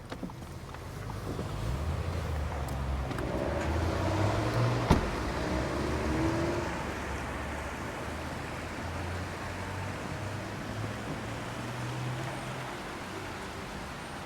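Low rumble of a car engine running, swelling for the first few seconds and then settling, with a single sharp click about five seconds in.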